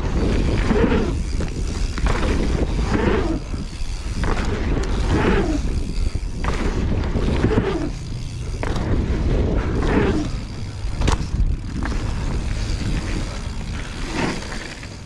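Mountain bike riding on a trail: a loud, steady rumble of wind on the microphone and tyres rolling, swelling about every two seconds, with a few sharp knocks and rattles from the bike.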